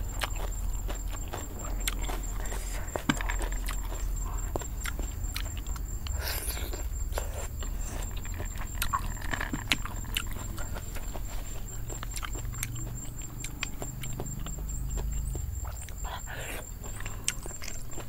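A person eating shellfish papaya salad: chewing and mouth sounds, with many small clicks and taps as shells are picked from a metal tray. A thin steady high whine runs underneath.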